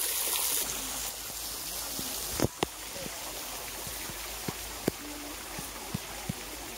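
Mineral water of the petrifying well splashing and trickling steadily down the rock face, with a handful of sharp, irregular knocks from about a third of the way in: footsteps on a wooden boardwalk.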